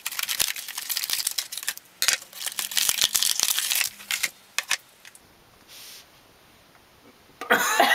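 Crinkling and crackling as a package of foam putty is handled and opened, with many sharp clicks, stopping about four and a half seconds in.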